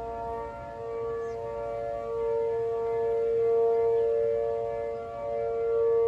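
Outdoor tornado warning sirens, the nearest an ACA P-15 rotating siren, sounding a steady tone during a scheduled test. The pitch holds steady while the loudness swells and fades as the siren turns.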